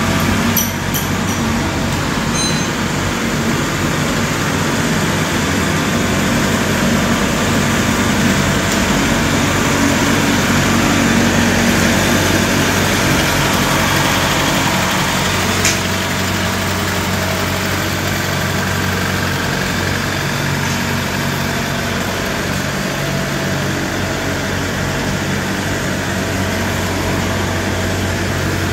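Tracked combine harvester's diesel engine running steadily at a constant speed. A single sharp click sounds about halfway through.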